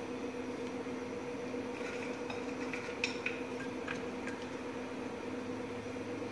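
Steady background hum holding two low tones, with a few faint light clicks and taps from about two seconds in, the sharpest near the middle, as soaked biscuits are set into a glass bowl.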